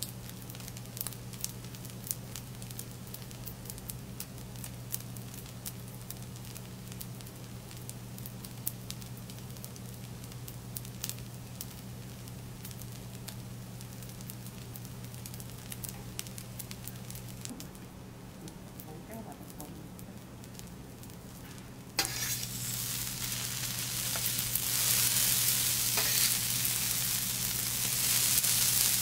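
Fried rice sizzling on a teppanyaki steel griddle, with metal spatulas tapping and scraping against the plate over a steady low hum. About three-quarters of the way through, the sizzling jumps abruptly much louder.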